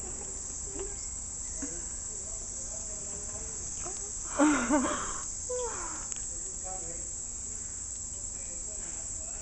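Steady high-pitched chorus of insects throughout. About four and a half seconds in, a woman laughs briefly, the loudest sound here.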